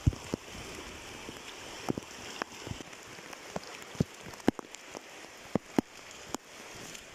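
Water drops tapping irregularly and sharply, about fifteen times, over a steady hiss; the loudest taps fall right at the start and again about four and a half and six seconds in.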